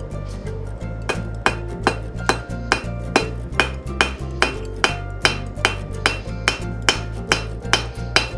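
Hand hammer striking hot steel on an anvil in a steady run of blows, about two to three a second starting about a second in, each blow ringing briefly. Background music plays underneath.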